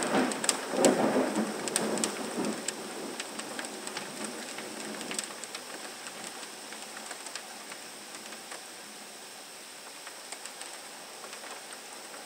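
Heavy rain falling steadily, with a peal of thunder rumbling and dying away over the first few seconds. Scattered sharp ticks of close drops run through the rain.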